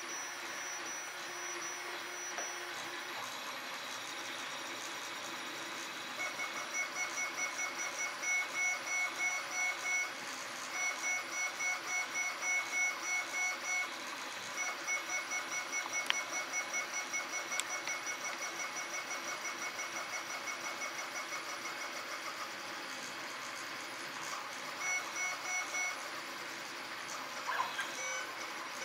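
Ord Bot 3D printer's stepper motors whining in short repeated pulses, about three a second, as the print head moves back and forth laying down the first layer. The pulses start about six seconds in, pause briefly twice, die away after about twenty-two seconds and return for a short run near the end. A steady mechanical hum runs underneath.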